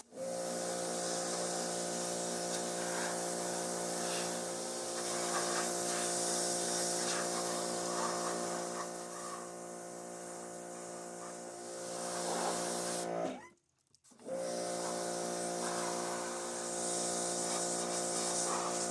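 Pressure washer running steadily, its motor and pump giving a constant hum under the hiss of the water spray. About thirteen seconds in it cuts out abruptly, then starts up again a second later.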